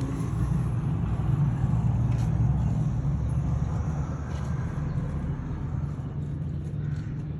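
Excavator's diesel engine running with a steady low rumble.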